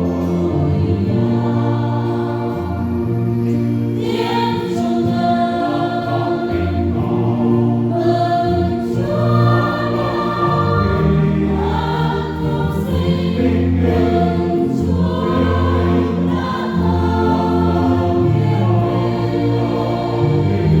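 Parish choir singing a Vietnamese Catholic Easter hymn, several voices in parts over sustained low notes.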